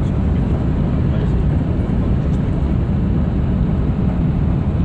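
Steady low rumble inside the cab of a Scania R620 truck cruising on a motorway: its V8 diesel engine running under way, mixed with tyre and wind noise.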